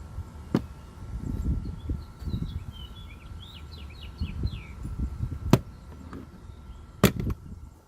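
Thin stainless steel pry bar worked under a plastic dashboard trim panel: handling and scraping, with three sharp snaps as the panel's clips let go, the loudest near the end.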